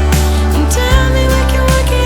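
Background pop music with steady bass and a drum beat.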